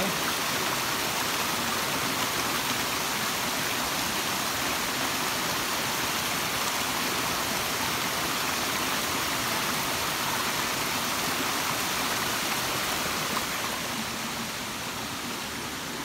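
Small forest waterfall and stream rushing steadily over rocks, a little quieter near the end.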